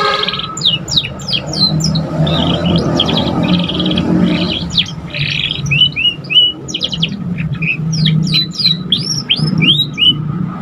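Young domestic canary practising its song: a run of quick chirps, sliding whistles and short trills, with a steady low hum beneath.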